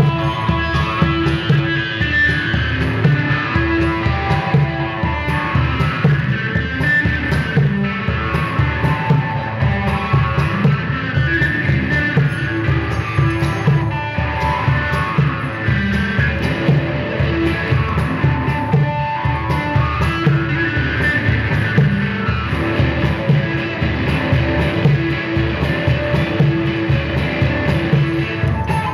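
Live instrumental music: an electric guitar playing shifting, repeating melodic lines over a steady, fast percussion pulse.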